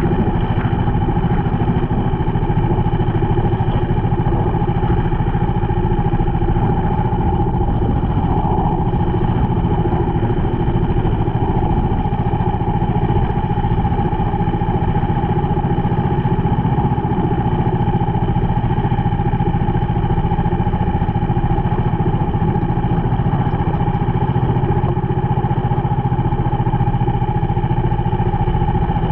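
Small outrigger fishing boat's engine running steadily under way, with water rushing along the hull.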